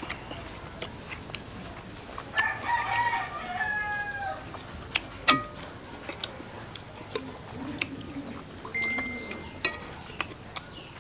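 A rooster crowing once, a call of about two seconds that starts a couple of seconds in and falls slightly at its end. Scattered small clicks run through it, with one sharp click about five seconds in.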